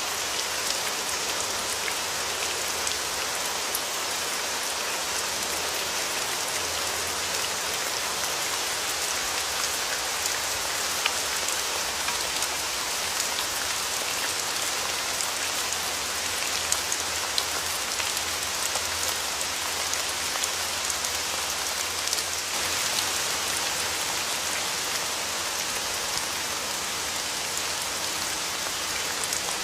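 Steady rain: an even hiss with scattered sharp taps of individual drops.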